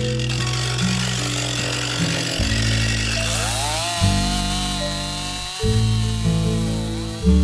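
Background music with steady low notes changing in steps, laid over a Stihl MS261 chainsaw cutting, its pitch dipping and recovering a few times as the chain bites and clears.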